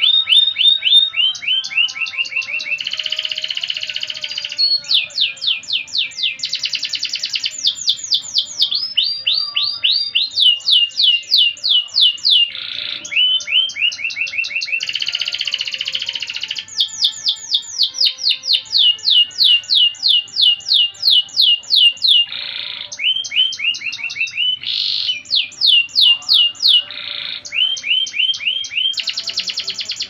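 Domestic canary singing a long, near-continuous song. Fast rolls of rapidly repeated down-sweeping notes, about five a second, alternate with buzzy trilled passages.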